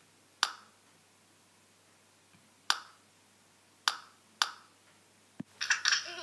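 Five short, sharp clicks spread unevenly over about five seconds: small toy snowballs hitting hard plastic Playmobil figures and the floor.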